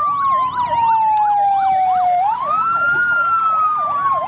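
Electronic emergency siren for a toy fire engine: a slow wail that falls, sweeps up again about two seconds in and falls once more, layered with a fast yelp warbling about three times a second.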